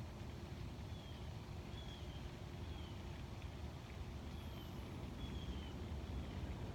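Outdoor ambience: a steady low rumble, with a bird repeating a short, high, falling chirp roughly once a second.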